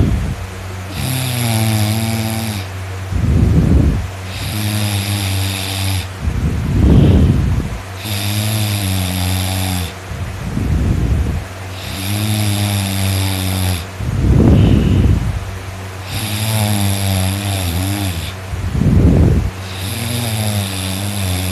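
A person snoring loudly in a steady rhythm, one breath about every four seconds: each a drawn-out, droning pitched snore followed by a short, rough, snorting burst, about five cycles in all.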